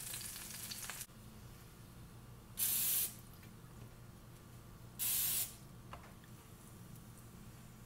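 Two short sprays from an aerosol cooking-spray can onto a bread bun, each a half-second hiss, about two and a half seconds apart. Before them, a faint frying sizzle from a grill pan stops abruptly about a second in.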